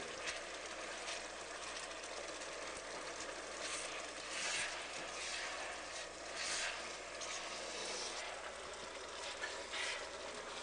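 Fish frying in oil in a pan: a steady sizzle, with a spatula stirring and scraping through it now and then.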